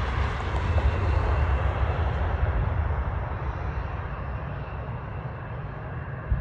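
Jet airliner engines at takeoff power heard from a distance: a steady rumbling roar that swells about a second in and then slowly fades.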